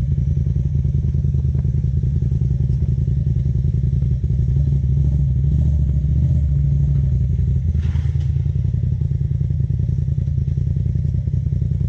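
Side-by-side UTV engine running steadily at low revs while it works over rock, with a short knock about eight seconds in.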